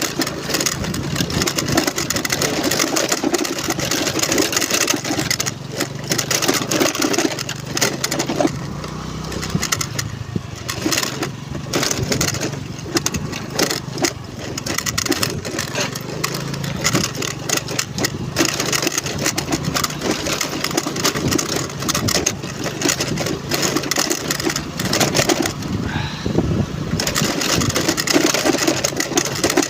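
Honda Navi's small single-cylinder four-stroke engine running steadily as the bike is ridden, mixed with continuous road and wind noise.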